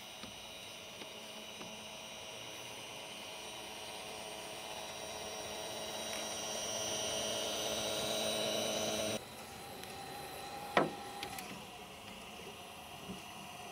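LGB G-scale model steam locomotive running on its track: the electric motor and gearing give a steady whine that grows louder as it draws near, then cuts off abruptly about nine seconds in. A single sharp click follows about two seconds later, with a few faint ticks after it.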